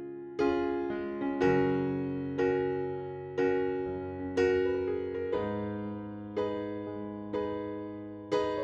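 Soft background piano music, gentle chords struck about once a second and left to ring.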